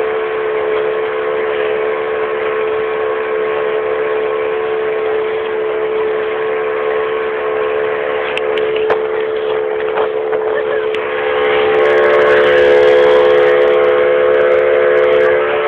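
Boat motor running steadily at a constant pitch, getting somewhat louder about twelve seconds in.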